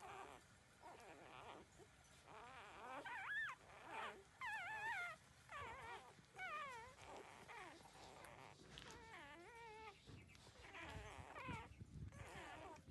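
Thirteen-day-old puppies whimpering and squeaking while nursing: a string of short, wavering high cries, a few rising and falling sharply, the loudest a few seconds in.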